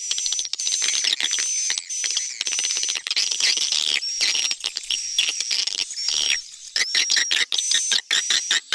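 Swiftlet lure recording playing: a dense stream of rapid high chirps and twitters with short clicks, over a flat high whistle-like tone that comes and goes about every half second. It is a mix of 'tarik' (attracting) and 'inap' (roosting) swiftlet calls, used in swiftlet houses to draw the birds in and keep them roosting.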